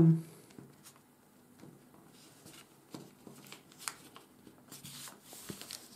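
A sheet of 80 g/m² office paper being folded by hand: faint rustling with a few soft crinkles and taps as a flap is bent over and pressed down.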